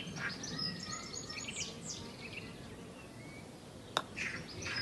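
Small birds chirping and twittering in quick short notes, busiest in the first two seconds, with a single sharp click about four seconds in.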